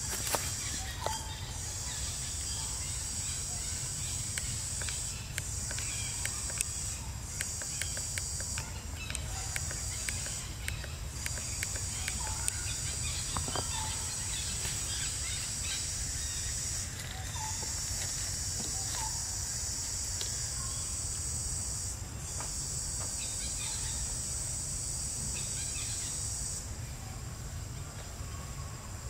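High-pitched insect buzzing in long stretches of a few seconds each, breaking off briefly between them, over a steady low rumble, with scattered faint clicks.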